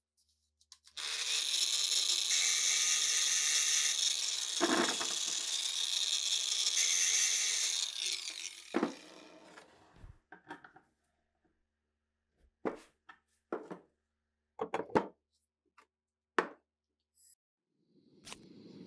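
A power tool running on rusty metal for about seven seconds, then a scatter of short, sharp metal knocks and clicks.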